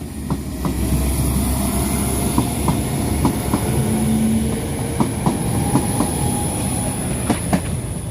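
Passenger train running past close by: a steady low rumble with a string of sharp clicks as the wheels cross rail joints, and a thin high whistle over it.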